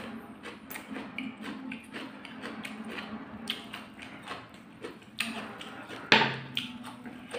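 Close-miked eating sounds: chewing and lip smacks, a run of small wet clicks, of people eating a giant fried egg omelette with instant noodles. About six seconds in there is a louder, short sound as a piece of the omelette is torn off by hand and lifted.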